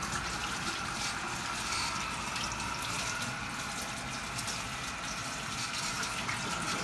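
Kitchen faucet running steadily into the sink, a constant rush of water.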